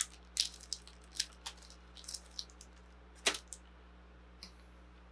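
Scattered small clicks and crinkles of a plastic parts bag and a plastic model-kit sprue being handled, with one sharper click about three seconds in.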